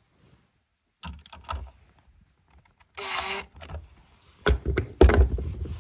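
Clicks and knocks of hands handling the opened plastic tower-fan housing, with a brief whir of about half a second about three seconds in. Heavier thumps follow near the end and are the loudest part.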